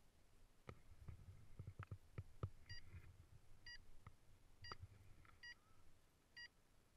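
Paragliding variometer giving short, faint high beeps about once a second, five of them from a little before halfway on. Earlier, a quick run of soft knocks and clicks.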